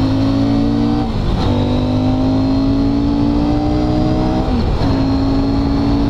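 CFMOTO 800 MT's parallel-twin engine accelerating hard, its pitch climbing through each gear, with two upshifts, about a second in and about four and a half seconds in.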